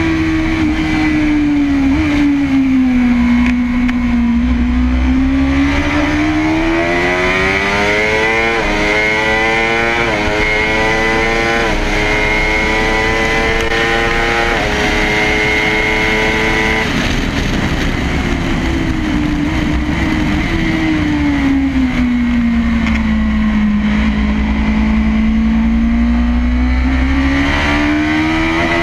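Kawasaki ZX-10RR's inline-four engine on track, heard from a camera on the bike with wind rush. The revs fall through a corner and climb again, then four quick upshifts each drop the pitch suddenly. About halfway the throttle closes, and the revs sink through the next corner before rising again near the end.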